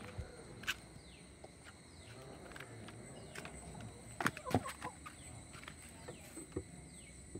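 Chickens clucking faintly, with a few sharp knocks. A high, falling chirp repeats about once a second throughout.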